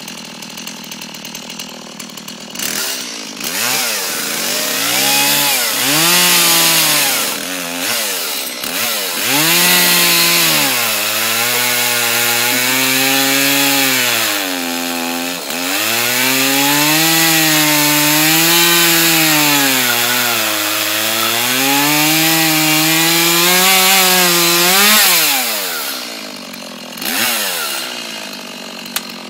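Small two-stroke chainsaw idling, then revved in several short bursts before it is held at high throttle cutting through a log, its pitch dipping and rising as the chain bites into the wood. About 25 seconds in it drops back to idle, with one more short rev near the end.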